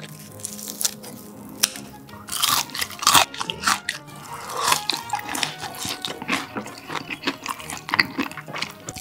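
Close-up crunching bites and chewing of fried squid tempura, with irregular crisp crackles, over light background music.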